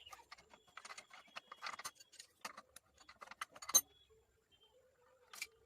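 Small metal parts and tools clinking and rattling as they are handled, with one sharp metallic clack about four seconds in.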